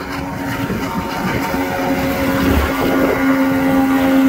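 Outboard motor with a water-jet drive running on a loaded RIB, holding a steady pitch and growing gradually louder, over wind and water noise.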